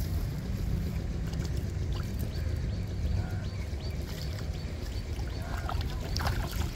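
A nylon cast net being hauled in through shallow pond water, with water trickling and sloshing, under a steady low rumble. Near the end, sharper splashes as fish thrash in the net at the water's edge.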